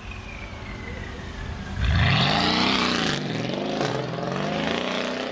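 Mercedes-AMG car engine and exhaust under hard acceleration: steady at first, then about two seconds in it opens up loudly, the pitch climbing, dipping back and climbing again as it shifts up through the gears.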